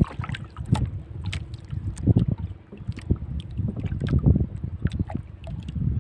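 Wind buffeting the microphone and water lapping against a small boat's hull, in low rumbling surges every second or two, with scattered light clicks from handling.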